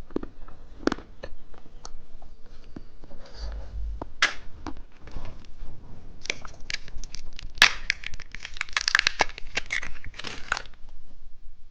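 Plastic candy wrapper being torn open and crinkled by hand: scattered sharp crackles at first, then a dense run of crinkling from about six to ten and a half seconds in.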